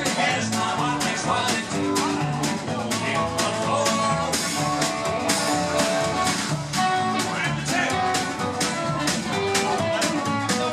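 Live country band playing: guitar over drums with a steady beat.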